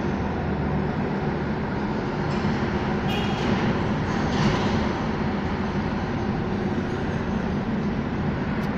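Steady engine rumble with a low hum, briefly joined by a short hiss about three seconds in and again about four and a half seconds in.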